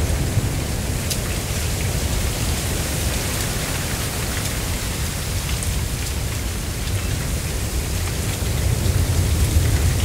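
Mistral wind blowing through a dense stand of dry giant cane (Arundo donax), the stalks and leaves rustling steadily over a low rumble of wind, with a few faint ticks; the gusts swell a little near the end.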